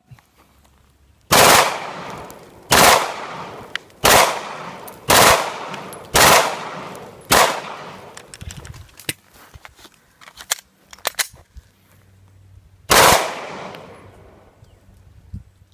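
Glock 18 9 mm machine pistol fired on full auto in short bursts. Six bursts come about a second apart, then after a pause of a few seconds there is one more near the end.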